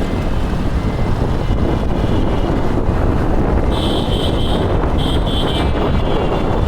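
Wind buffeting a phone microphone during a bike ride, over a steady low rumble of road and traffic. About four seconds in, a quick series of short high-pitched beeps lasts for about two seconds.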